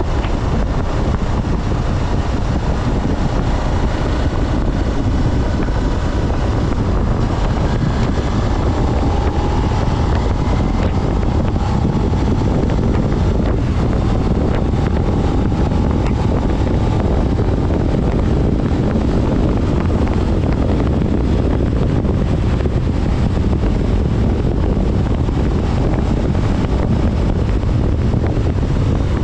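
2024 Suzuki SV650's V-twin, stock exhaust and A2-restricted, running on the move under heavy wind noise on the microphone. A faint engine note drifts gently up and down in pitch.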